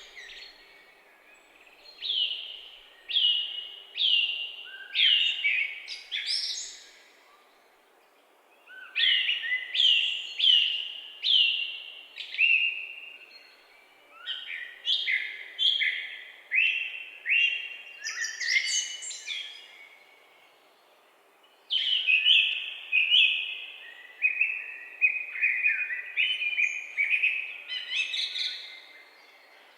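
Songbirds singing in a forest: clear notes that slide downward, repeated roughly one or two a second. They come in three bouts, with short pauses of a couple of seconds between them.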